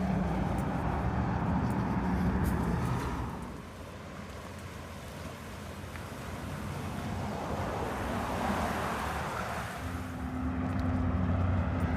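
Road traffic: the low engine hum of a passing motor vehicle fades away a few seconds in, and another vehicle's engine approaches and grows louder near the end.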